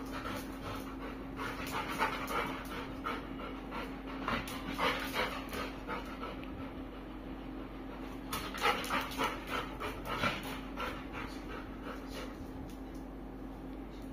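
Labrador retriever panting in quick, rhythmic breaths, about three a second, coming in spells that are strongest at the start and again about eight to ten seconds in.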